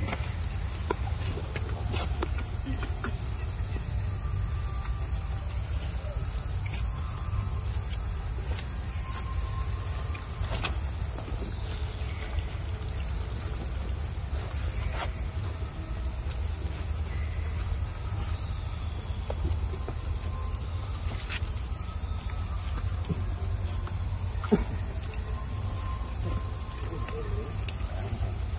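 A steady, high-pitched insect chorus over a low rumble, with a few faint clicks and short chirps.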